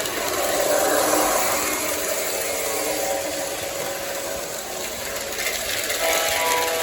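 O gauge electric model train running fast on its track, its motor whining steadily, with the pitch changing about six seconds in.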